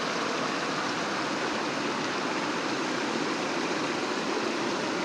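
Steady rush of fast-flowing floodwater, an even noise that holds the same level throughout.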